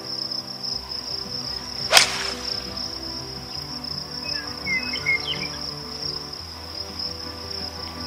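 A single sharp crack of a golf club striking the ball on a tee shot, about two seconds in, over a steady high trilling of crickets.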